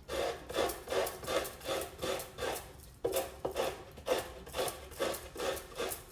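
Fresh coconut meat being scraped from the shell on a traditional coconut scraper, in rhythmic rasping strokes, about two and a half a second.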